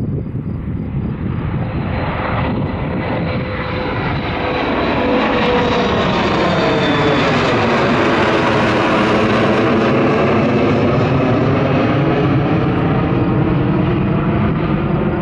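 Bombardier CRJ900 regional jet climbing out after take-off, its two rear-mounted GE CF34 turbofans at take-off/climb power. The jet noise grows louder as the aircraft passes, at its loudest about eight to ten seconds in, and eases slightly near the end.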